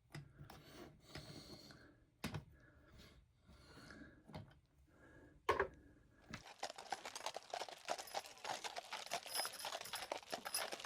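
Small plastic LEGO pieces being handled on a tabletop: scattered light clicks and knocks, one sharper knock about five and a half seconds in, then a dense, steady rattle of small clicks from about six seconds in.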